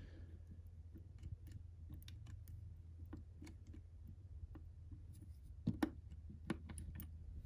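Faint, scattered small clicks and scrapes of a Hornby hex tool tightening the crank screw on a model steam locomotive's driving wheel, with a couple of slightly louder clicks near the end, over a steady low hum.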